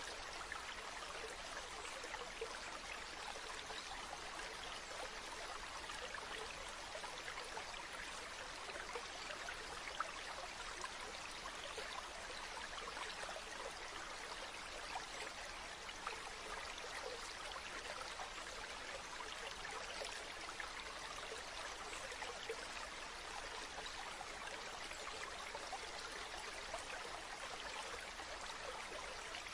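A small stream flowing steadily: an even rush of running water with fine trickling flickers through it.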